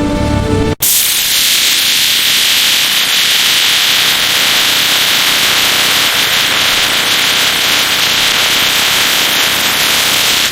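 Loud, steady hissing noise, strongest in the upper range, that cuts in suddenly about a second in.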